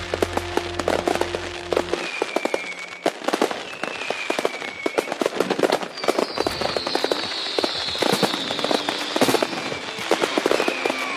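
Fireworks display: rapid crackling pops and bangs from low-level effects, with several whistling fireworks whose whistles fall slowly in pitch, the longest lasting about three seconds.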